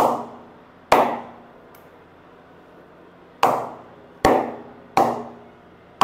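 An old leather cricket ball bounced repeatedly off the face of a GSI Kashmir willow hard-tennis bat: six sharp wooden knocks, each with a short ringing decay, with a pause of about two seconds after the second. The knocks are tapping to show how lively the blade is; the ball flies well off it.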